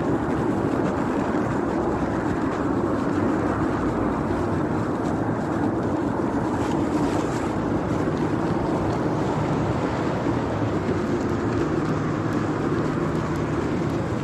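Steady rumble of city street traffic, with a low steady hum coming in about three seconds before the end.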